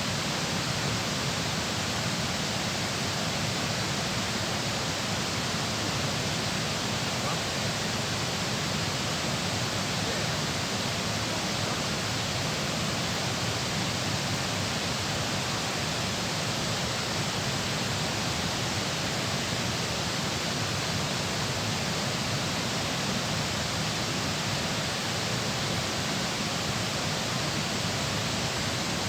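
Rushing water from the dam, a steady, even roar of water pouring through or over it.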